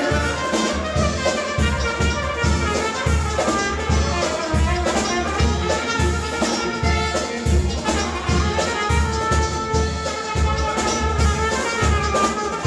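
Live band playing Greek folk dance music, a trumpet carrying the tune over a steady drum beat.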